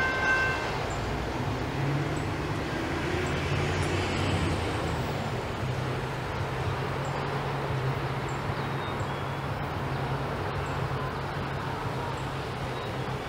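Freight train of auto rack cars rolling away, a steady low rumble and hum fading slowly into the distance. A locomotive horn chord cuts off just after the start.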